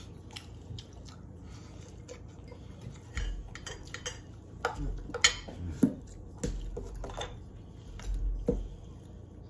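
Cutlery clinking and scraping against dinner plates during a meal of fried rice, in irregular short knocks, the loudest a little past the middle.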